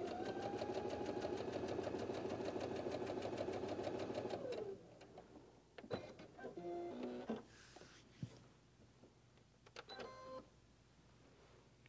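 Baby Lock sewing machine stitching steadily at speed with a fast, even needle rhythm, then winding down to a stop about four and a half seconds in. A few short mechanical whirs and clicks from the machine follow.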